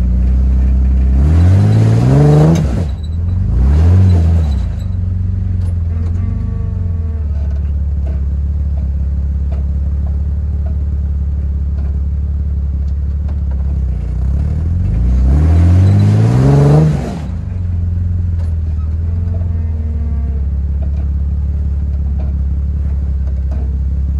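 Jeep Wrangler TJ engine idling and revved in three short bursts, twice in the first five seconds and once more around fifteen seconds in, as it crawls up a steep rock ledge.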